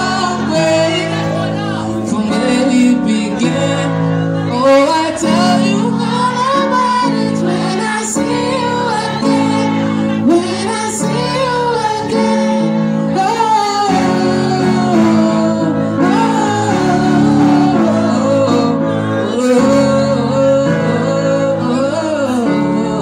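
Live Yamaha electronic keyboard playing sustained chords, with a voice singing a gliding melody over them.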